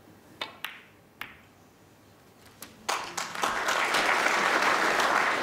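Snooker cue striking the cue ball and, a fraction of a second later, the sharp click of the cue ball hitting the black, then another knock about a second in. From about three seconds in, an audience applauds, greeting the pot of the black that takes the lead beyond the points remaining.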